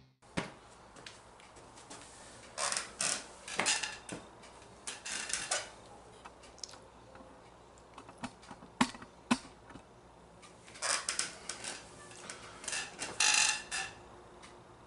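Quiet, scattered clicks, light knocks and rustling: handling noise from a person moving about and getting settled. It comes in short clusters about a second long, spread through the stretch, with quiet room tone between them.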